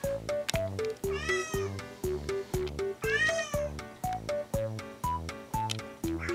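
A stray kitten meowing three times, high-pitched calls that rise and then fall, over background music with a steady light melody.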